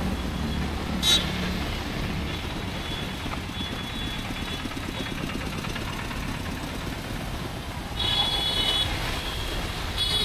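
Rainy city street: a steady hiss of rain and traffic with vehicle engines rumbling past. A sharp click comes about a second in, and a vehicle horn sounds briefly twice near the end.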